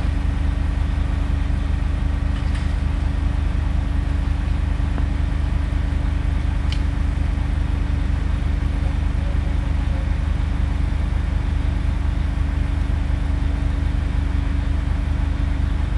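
A large engine running at a steady idle, a constant low drone with a steady tone above it and no change in speed; two faint clicks about two and a half and seven seconds in.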